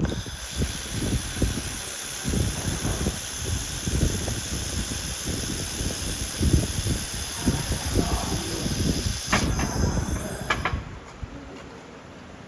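1.5 kW handheld fiber laser machine working on steel: a steady hiss of gas with dense irregular crackling. It cuts off suddenly about eleven seconds in.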